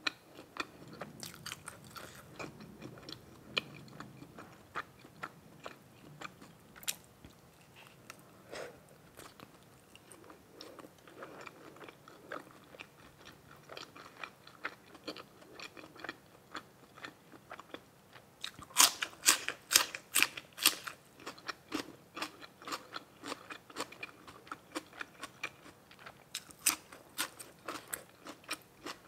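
Close-miked chewing and biting: many small wet clicks of food being chewed, with a louder stretch of crunchy bites a little past the middle.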